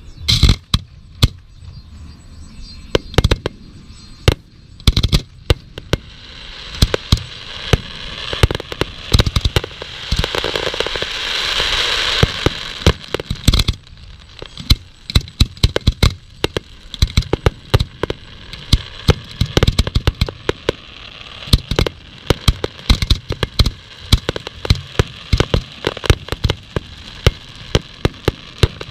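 Fireworks display: a rapid, irregular run of sharp bangs from bursting shells, with a dense crackling hiss that builds up about a third of the way in and stops abruptly around halfway.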